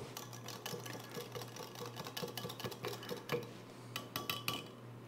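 Wire whisk beating a thin sauce in a glass Pyrex measuring cup: rapid light clicking as the wires strike the glass, with a few louder, ringing taps about four seconds in.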